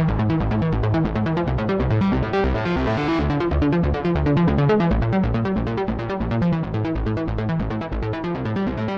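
Electronic dance music with a fast, steady beat and a strong bass line.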